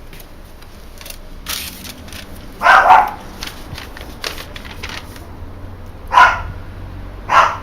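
A dog barking three times, a few seconds apart, over faint clicks and rustling.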